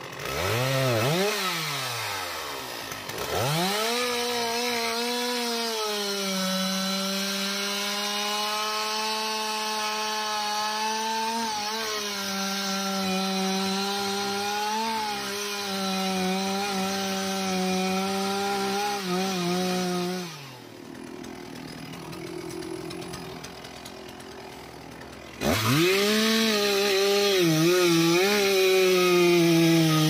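Petrol chainsaw revving up, then cutting steadily into a teak trunk at full throttle. About twenty seconds in it drops back to a quieter idle for a few seconds, then revs up and cuts again.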